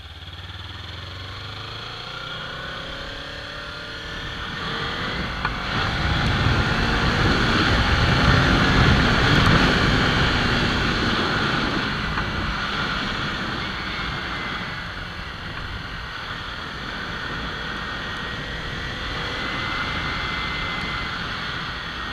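Kawasaki Ninja 300's parallel-twin engine under way with wind and road noise, the engine pulling harder from about four seconds in to a peak around nine seconds, then easing back to a steady cruise.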